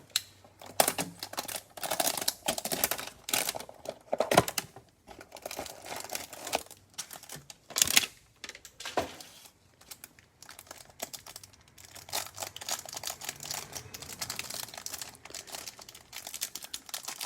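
Trading card hanger pack packaging being torn open and handled: plastic wrapper crinkling with several sharp rips, turning into denser, steadier crinkling in the last few seconds.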